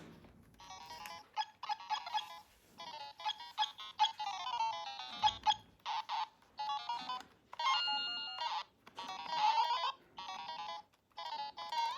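Electronic ringtone-like beeping melody played in short choppy phrases with brief gaps between them, some notes sliding in pitch.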